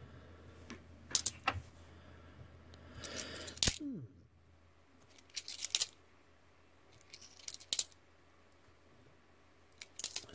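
Cupronickel Australian 20-cent coins clinking against each other and the table as they are picked up and set down one at a time. The clinks come in short clusters about every two seconds, and the loudest falls about a third of the way in, followed by a brief falling ring.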